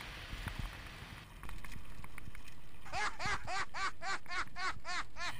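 Mountain bike rattle and trail noise fade out in the first second and a half, and a music track comes in. From about three seconds in, the music has a quick repeating pitched figure of about four to five notes a second, each rising and then falling.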